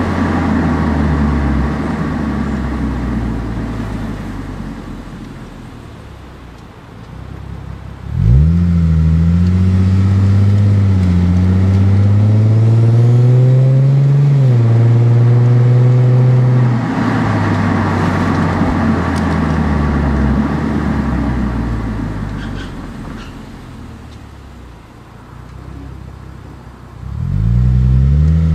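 Exhaust note of a 2006 Lexus IS250's 2.5-litre V6 through a Greddy SE catback exhaust, heard right at the tailpipe while driving. The note fades as the car coasts. About eight seconds in it jumps sharply under hard acceleration and climbs in pitch, dips briefly, then drops back a few seconds later and fades under coasting. It jumps again on a second hard acceleration near the end.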